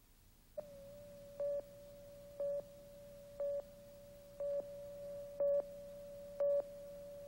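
Countdown leader test tone: a steady beep-tone starts about half a second in, with a louder beep once a second marking each number of the countdown.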